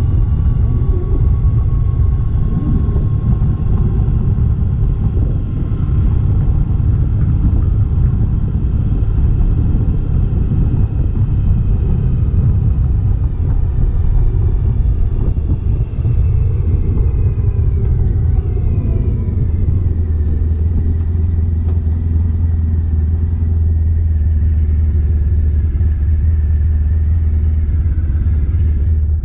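Honda ST1100 V4 motorcycle on the move: engine rumble mixed with wind noise on the rider's microphone. About two-thirds of the way in the engine note drops, settling into a steadier low hum.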